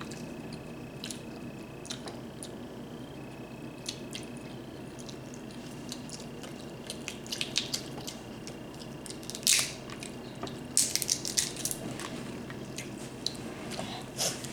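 Close-miked eating of a saucy seafood boil: wet squishing and chewing, with scattered sharp cracks and clicks that come thicker and louder in the second half.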